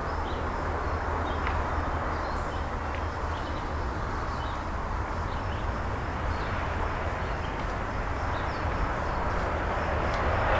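Steady outdoor background rumble that grows louder near the end, with faint short high chirps scattered through it.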